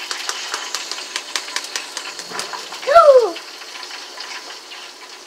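A metal fork tapping lightly and irregularly against an eggshell, trying to crack it, in a run of small clicks. About three seconds in, a short voice sound falling in pitch.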